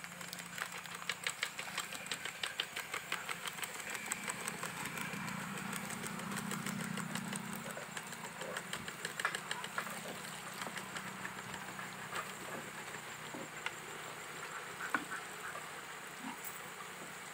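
Nimki dough pieces deep-frying in a kadai of hot oil as they are slid in: the oil sizzles and crackles densely for the first several seconds, then settles to a thinner sizzle with scattered pops, over a steady low hum.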